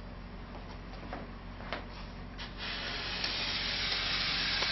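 Foam gun dispensing a bead of foam adhesive onto a foam board: a steady hiss that grows louder about two and a half seconds in, with a few faint clicks before that.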